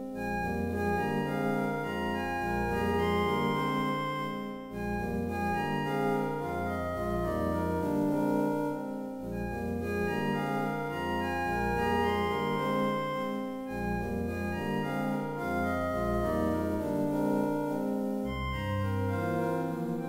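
Digital keyboards in a microtonal, untempered tuning, played four-hands: sustained chords over low bass notes that change about once a second.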